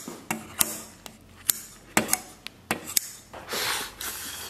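Kitchen scissors snipping through stir-fried octopus in a stainless steel bowl, with sharp metal clicks and clinks about every half second. A short spell of eating noise follows near the end.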